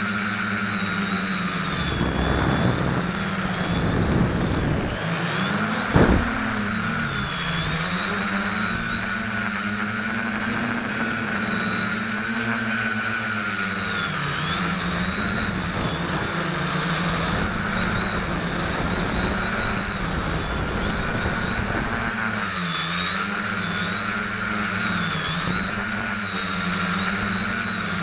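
Quadcopter's electric motors and propellers humming close to the camera mounted beneath it, the pitch rising and falling constantly as the throttle changes in flight. A single sharp knock comes about six seconds in.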